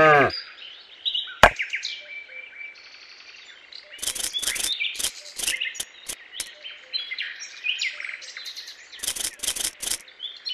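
The tail end of a cow's moo cuts off at the very start, followed by a sharp click about a second later. Birds chirp in the background. From about four seconds in come clusters of short, crisp rustles as chopped leaves are dropped into a steel bowl.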